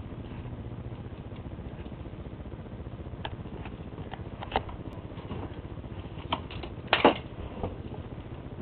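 A dog scuffling over a paper napkin: scattered short taps and scrapes, the loudest about seven seconds in, over a steady low hum.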